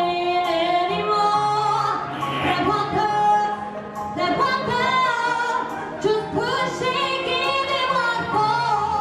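A woman singing live into a microphone over a backing track, holding long notes over a steady low accompaniment.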